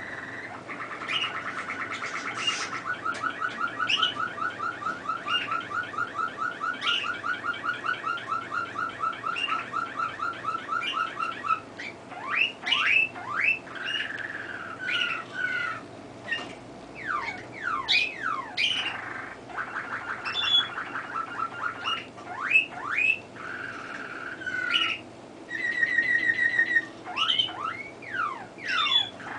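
Caged canary singing: a long rolling trill of evenly repeated notes for about the first twelve seconds, then quick downward-sweeping whistles alternating with shorter trills and rolls at changing pitches.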